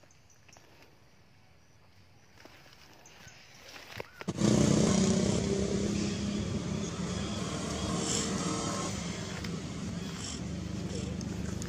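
Faint background, then about four seconds in a motor engine starts running steadily with a low, even hum. It is loudest at first and eases off a little.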